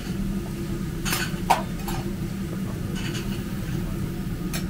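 Metal cooking utensils clinking and scraping a few times on a griddle, the sharpest, loudest clink about one and a half seconds in, over a steady low hum.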